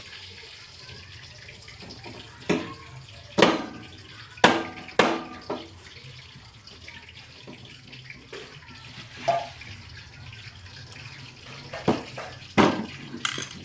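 Irregular sharp clinks and knocks from handling tools and metal parts during a refrigerator condenser replacement, about eight or nine spread unevenly, over a low steady hum.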